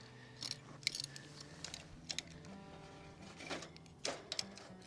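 Wood fire and hot charcoal crackling, with irregular light clicks and pops, under faint soft background music.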